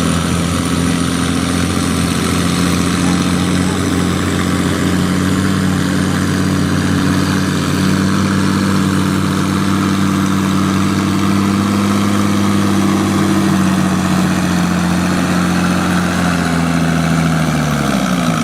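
Farm tractor engine pulling a sled at a steady high speed, its pitch held and rising slightly through the middle, then dropping away near the end as the throttle comes off.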